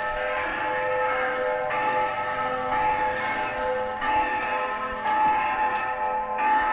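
Church bells pealing: several bells of different pitches struck in turn, their tones ringing on and overlapping, with a fresh strike about once a second.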